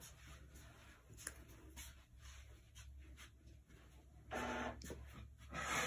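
Quiet handling sounds: faint rustles and light clicks as coils of braided synthetic hair are worked and pressed into place with the fingers and a wooden craft stick, over a low steady hum. Two louder rustling bursts come near the end.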